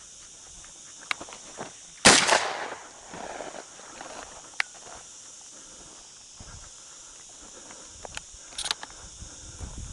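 A single shotgun shot about two seconds in, with a short echoing tail. Lighter snaps and crunches of footsteps through dry scrub come before and after it.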